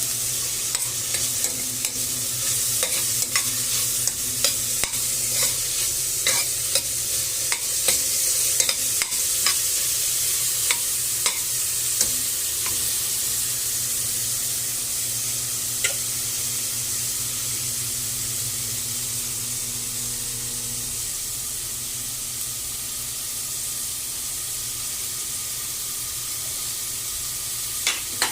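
Shredded boiled chicken sautéing in oil with garlic, onion and cabbage: a steady sizzle, with a utensil clicking and scraping against the pan through roughly the first twelve seconds, then mostly sizzle with only an occasional click.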